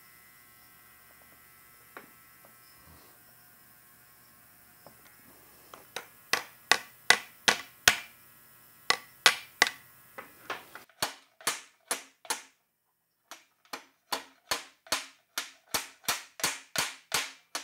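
Hammer blows on steel tools held against the bent steel flange of a Porsche 356 axle tube, tapping the dipped-over section back straight. After a few quiet seconds come quick sharp metallic strikes, about three a second, with a short pause near the end.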